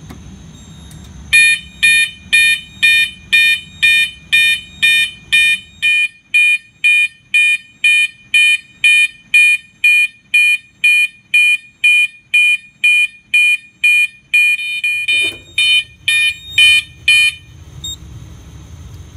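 Siemens fire alarm horn sounding its high tone, pulsed by the panel in march-time code at about two blasts a second. It starts about a second in and cuts off a couple of seconds before the end.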